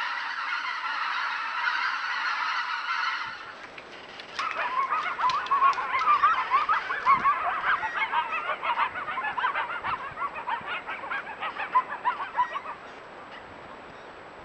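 A large flock of geese and ducks calling and honking all at once, a dense chorus of many overlapping calls. It breaks off about three seconds in, comes back louder a second later, and drops away to a faint hiss near the end.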